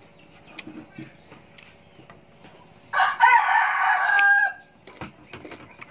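A rooster crowing once, about three seconds in, lasting about a second and a half.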